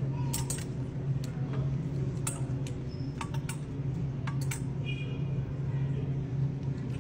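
Clothes hangers clicking and clattering against each other and the rack as garments are handled, a dozen or so light, sharp clicks scattered unevenly, over a steady low background hum.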